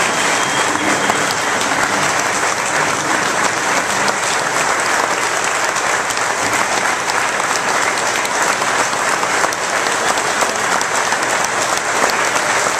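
Audience applause, a steady patter of many hands clapping that goes on without letting up, greeting the end of a speech.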